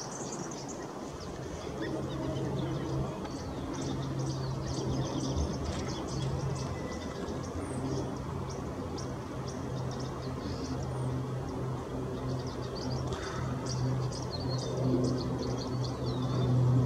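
Twin-turboprop transport aircraft climbing out after takeoff, its propellers giving a steady low drone that grows a little louder near the end. Small birds chirp over it.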